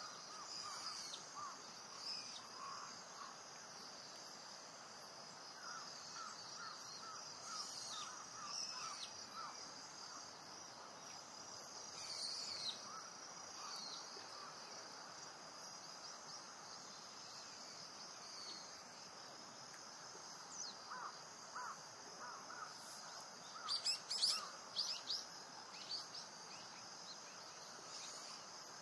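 Faint natural ambience: a steady high-pitched hum of insects, with small birds chirping now and then and a brief flurry of sharper bird calls about 24 seconds in.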